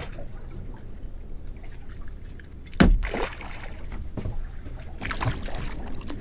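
Water trickling and dripping, with one sharp knock about three seconds in.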